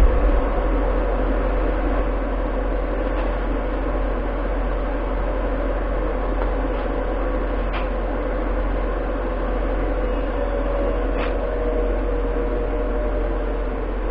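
Steady mechanical whir over a low hum, as from a running machine or its cooling fan, with a few faint clicks.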